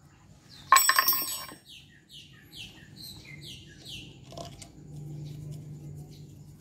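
A sharp metallic clink that rings briefly about a second in, from a steel screwdriver knocking against the scooter's engine parts, followed by a small bird chirping quickly and repeatedly in the background.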